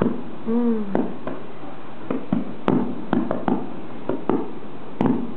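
A series of sharp, irregular taps and knocks, about a dozen spread over several seconds, with a short falling pitched cry about half a second in.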